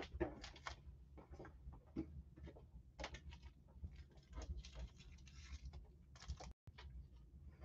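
Faint, irregular clicks and taps of typing on a computer keyboard.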